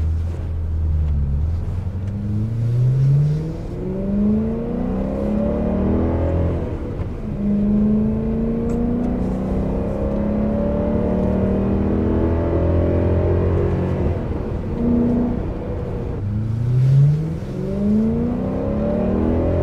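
BMW E92 M3 4.0-litre V8 with an Eventuri carbon intake and a Dinan catless exhaust, accelerating hard. The engine note climbs in pitch with the revs and drops back at each gear change, several times over.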